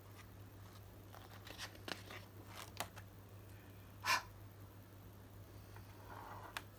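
Paper pages of a handmade book being handled and turned: faint rustles and clicks, with one louder swish about four seconds in. A steady low hum runs underneath.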